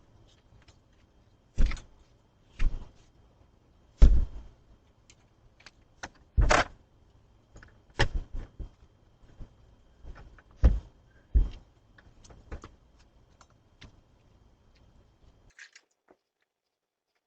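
Keys jangling and clicking in a door lock as someone tries several keys one after another: a run of sharp, irregular clicks and knocks.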